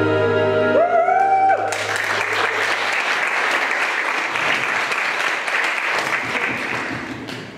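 A song ends with a final held note about a second in. An audience then applauds, the clapping dying away near the end.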